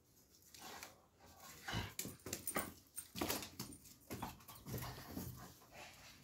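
Doberman pinscher making short, irregular dog sounds that start about two seconds in and go on to the end, with sharp clicks mixed in.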